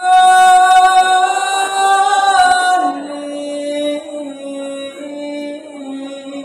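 A teenage boy singing a Javanese macapat verse solo and unaccompanied, holding one long high note for about three seconds that bends downward at its end, then carrying on at a lower, steadier pitch.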